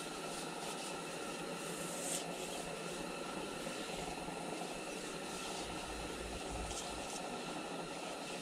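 Steady hissing background noise with a few faint steady hum tones and a brief brighter swish about two seconds in.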